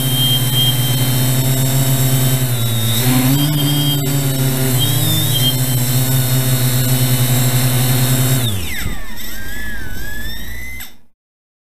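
Quadcopter with 480 kV brushless motors and propellers running with a steady hum, its pitch shifting a few times as the throttle changes. About eight and a half seconds in, the motors spin down with a falling whine, leaving a rough rumble that fades out just before the end.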